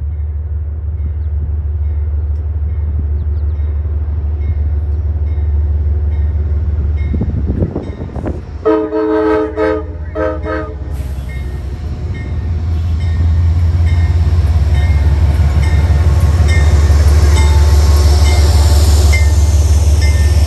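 Amtrak passenger train approaching and passing at track speed. Its diesel locomotive sounds its horn about nine seconds in, a longer blast then a short one. The rumble of the locomotive and coaches grows loud as it goes by.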